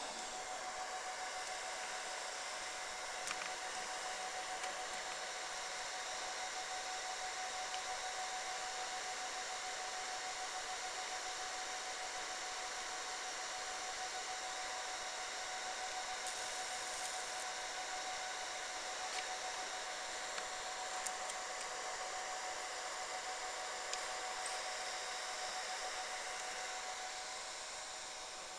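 Mini fiber laser marking machine running, a steady whirring hum of its cooling fans with one clear held tone. A brief high hiss comes a little over halfway through.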